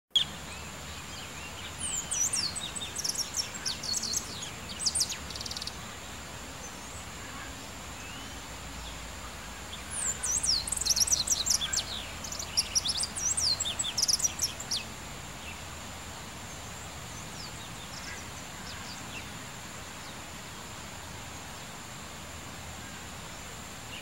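A small songbird singing in two bursts of rapid, high chirps and trills. The first runs from about two to five seconds in, and a second, busier burst from about ten to fifteen seconds, over a steady outdoor hiss and a faint high whine.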